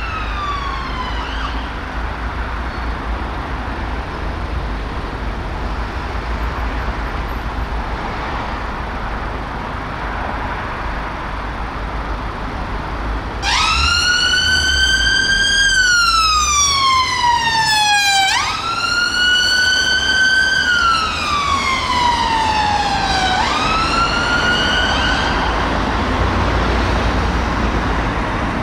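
Fiat Ducato ambulance's electronic siren on a slow wail. A falling tone ends about a second in, then there is steady road traffic noise; about halfway through the siren comes in loud again with long sweeps, each rising briefly and then falling slowly over about five seconds, and it cuts off a few seconds before the end, leaving traffic noise.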